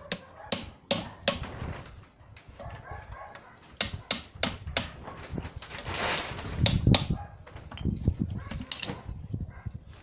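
Hammer blows on steel: a series of sharp metallic taps, irregularly spaced, seating the retaining ring and ball pin of a GAZ-53 steering tie rod end.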